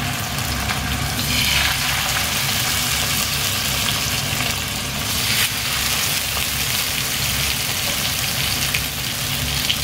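Salmon fillets sizzling in hot oil in a frying pan. The sizzle flares up about a second in and again about five seconds in, as more fillets go into the pan.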